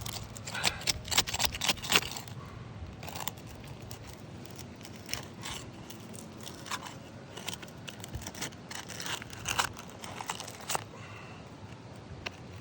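Old asphalt shingles being pried loose from their seal strips: irregular scraping, crackling and tearing, in a quick cluster at the start and again about eight seconds in. The shingles are worn bare of granules and frail, and they rip easily.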